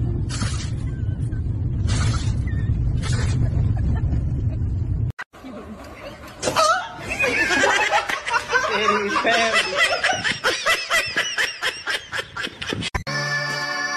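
Steady low rumble of a moving car's cabin with a few short sharp cries over it. After a cut about five seconds in, a person laughs hard in rapid gasping bursts until shortly before the end.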